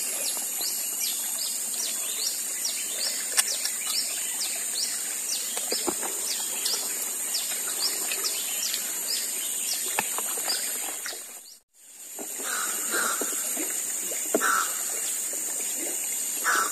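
Tropical forest ambience: a steady high-pitched insect drone with a bird's quick repeated chirps, about two or three a second. The sound drops out briefly about two-thirds of the way through, and a few lower calls follow.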